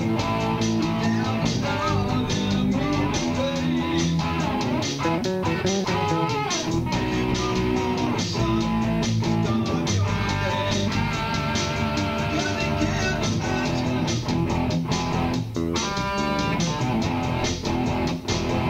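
Instrumental music: plucked guitar playing over a bass line, with some wavering, vibrato notes.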